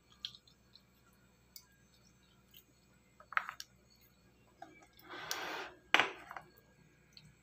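Occasional faint clicks and clinks of tableware being handled around a ceramic soup bowl. About five seconds in there is a short hiss-like rush, and just after it a sharper knock.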